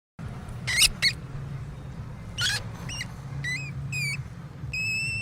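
A small animal giving a series of short, high-pitched squeaks, with a couple of shriller squeals about a second in and again midway, and a longer held squeak near the end, over a low steady hum.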